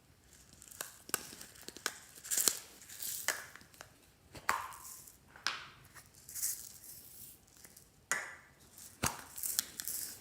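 Glossy slime being handled, stretched and pressed: sticky clicks, pops and short crackling tears at irregular intervals, about one or two a second.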